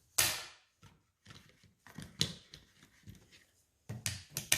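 A 12-gauge pump shotgun and its shotshells being handled ahead of loading the magazine tube: a series of sharp clicks and short metallic rattles, the loudest just after the start and near the end.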